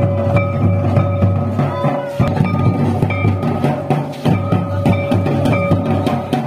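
Music with plucked guitar notes over a steady drum beat.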